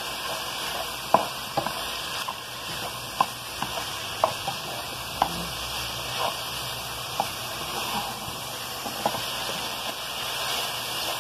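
Crumbled ground pork sausage sizzling as it browns in a skillet: a steady frying hiss with scattered sharp pops and ticks every second or so.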